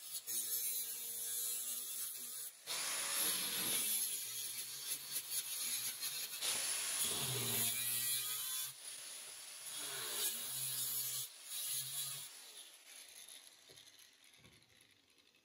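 Angle grinder cutting into a metal bicycle frame: a motor whine under a rasping hiss that swells and eases over several passes, fading out near the end.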